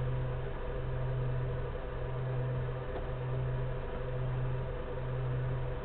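A steady mechanical hum, dipping slightly about once a second, over a low hiss.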